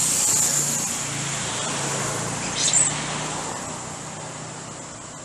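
A motor vehicle passes on the road, its tyre and engine noise swelling and then fading away. About two and a half seconds in there is one short, high squeal.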